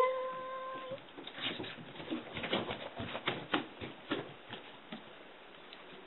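A cat's meow held at one pitch for about a second, then an irregular run of quick light taps and knocks for about four seconds.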